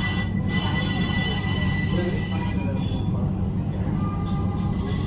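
Bombardier Flexity Swift tram in motion, heard from inside the car: a steady low rumble of the running gear on the rails under a high, steady electric whine. Near the end a fainter whine starts to rise a little.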